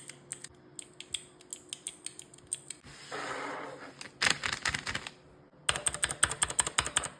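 Keys on a 3D-printed keyboard fidget toy being clicked: scattered single clicks at first, a short rustle about three seconds in, then fast runs of rapid clicking.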